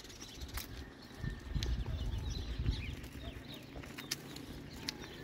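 Rural morning ambience: a rooster crows faintly, and small birds chirp now and then. A low rumble on the microphone swells for a couple of seconds, with a few sharp clicks.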